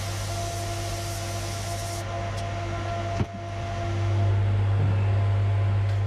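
Workshop extractor fan running with a steady hum, while a DeVilbiss SRI Pro spray gun hisses for about the first two seconds and then stops. A click comes a little past three seconds in, and after it the fan hum is louder.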